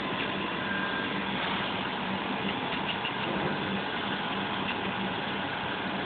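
Steady machine hum, an engine-like running drone at an even level.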